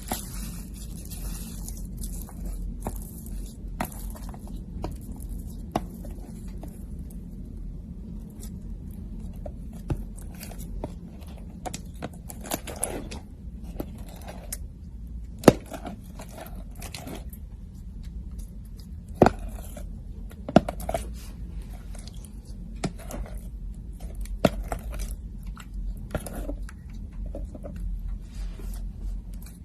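Slime being squeezed, stretched and poked by hand: irregular small clicks, pops and crackles, with a few sharper pops about halfway through, over a low steady hum.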